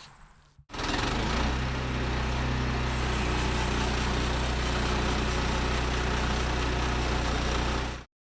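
Woodland Mills HM122 portable sawmill's gas engine running steadily. It comes in about a second in and cuts off abruptly near the end.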